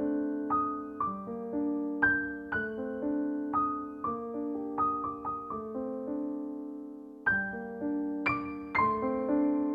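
Background music: a gentle solo piano melody of single struck notes that ring and fade. It thins to a few held notes past the middle, and new notes come in about seven seconds in.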